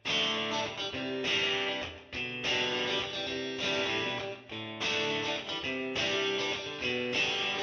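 Intro music on guitar, with chords strummed and struck anew every second or so.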